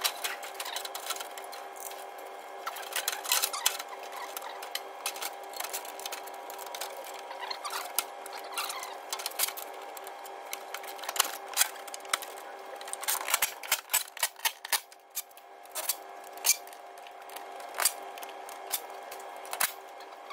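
Hand tools working on the car's underside, many quick irregular clicks, taps and clinks of metal on metal over a steady workshop hum.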